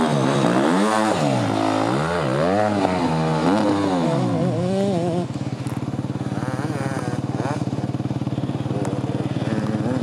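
Dirt bike engine revved up and down in about five quick rises and falls. About halfway through it gives way to a dirt bike engine idling steadily.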